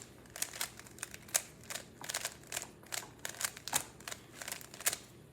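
Plastic puzzle cube being turned by hand, its layers clicking as they snap into place, an irregular run of sharp clicks a few per second that stops near the end.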